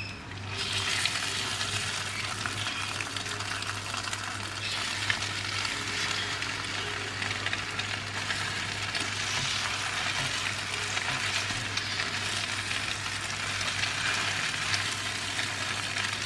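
Custard-soaked brioche French toast sizzling steadily in butter and oil in a nonstick pan. A silicone spatula scrapes and clicks in the pan as the slices are turned over.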